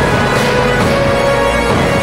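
Recorded music playing loudly: sustained held notes over a dense, layered backing, with crashing washes about half a second and a second in.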